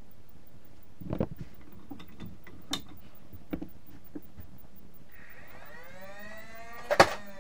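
Nerf Demolisher 2-in-1 blaster being handled and fired: a few plastic clicks and knocks as it is loaded, then its battery-powered flywheel motor spins up with a whine that climbs in pitch, and a sharp snap about seven seconds in as a dart is shot.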